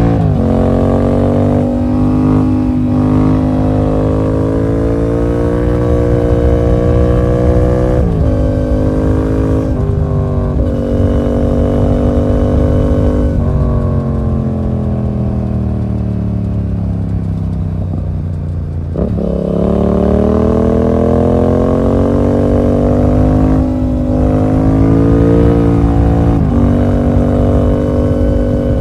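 Yamaha MT-07's 689cc parallel-twin engine through a full SC Project exhaust with the dB killer removed, accelerating hard through the gears with quick drops in pitch at each upshift. About halfway through it winds down for several seconds as the bike slows, then pulls up through the gears again.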